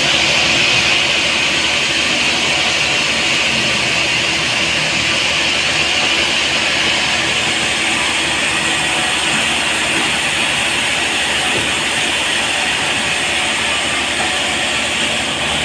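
Sawmill saw cutting steadily through a large trembesi (rain tree) log, a continuous, even noise with no breaks.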